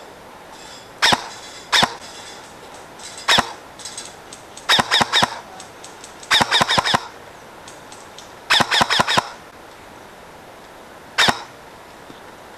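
Airsoft electric rifle (AEG), a Dytac LVOA M4, firing close by: a few single shots, then three quick strings of four to six shots, then one last single shot. Each shot is a sharp crack with a short metallic ring.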